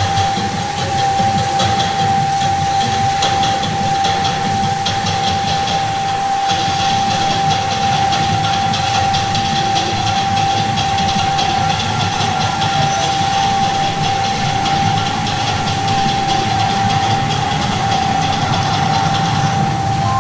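Water jets of a musical fountain spraying with a steady hiss and low rumble, with a single high tone held unbroken throughout.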